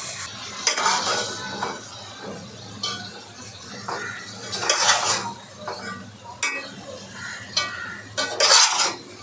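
A cooking utensil stirring soaked rice into chicken in a pot, scraping and clinking against the pot in irregular strokes.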